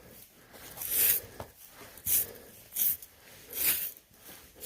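Snow and ice being brushed off a pony's coat: about four scratchy, rasping brush strokes roughly a second apart.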